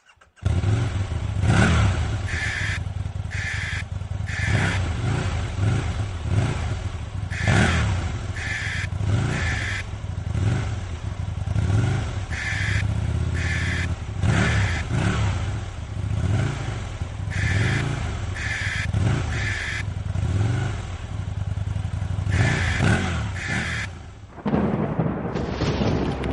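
Aprilia Tuono 1000R's V-twin engine being revved again and again in sharp blips, roughly one a second. It drops away briefly near the end.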